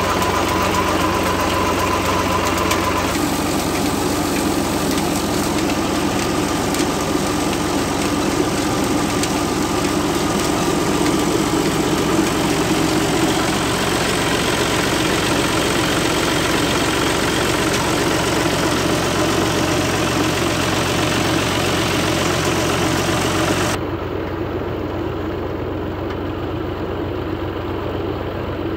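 New Holland Ghazi tractor's diesel engine running steadily under load, driving a tube-well pump through its spinning PTO shaft. Near the end the higher hiss drops away abruptly while the engine drone carries on.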